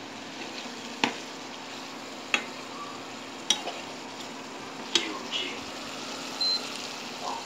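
Tofu and tuna sisig sizzling in a frying pan as it is stirred, with four sharp clicks of the spatula striking the pan about a second and a quarter apart.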